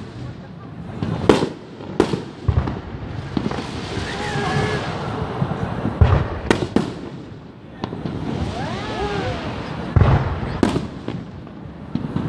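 Aerial fireworks shells bursting overhead: about nine sharp bangs, several in quick pairs and triplets, with a crackling hiss from the falling stars between them.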